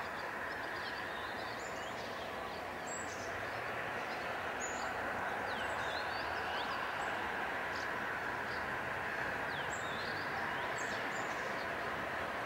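Distant metre-gauge train approaching, a steady rumble that grows a little louder partway through, with birds chirping and calling repeatedly over it.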